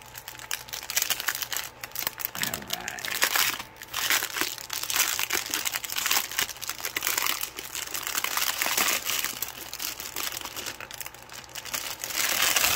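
Clear plastic bag holding packets of diamond-painting drills crinkling and rustling as it is unrolled and handled, in a dense, irregular crackle of small clicks.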